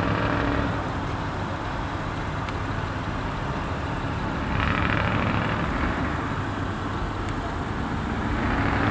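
Steady vehicle noise: a low engine rumble under an even hiss, growing brighter for a second or two about halfway through.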